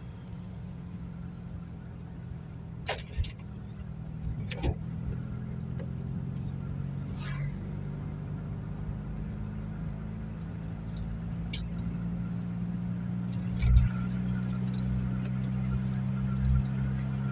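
Ford Fiesta mk2 XR2's carburetted four-cylinder engine running under way, a steady low drone heard from inside the cabin that grows gradually louder. A few sharp clicks and a low thump late on.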